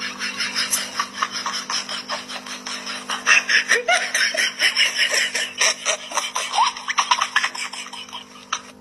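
People laughing in many short bursts, growing denser about three seconds in, over a steady low hum.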